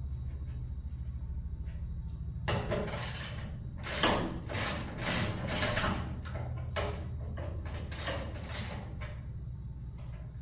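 A run of short, irregular scraping and rattling noises from work on a garage door, over a steady low hum; the noises start about two and a half seconds in and die away near the end.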